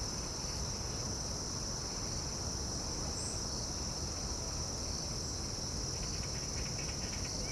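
Crickets and other insects chirping in the grass in a continuous high-pitched chorus.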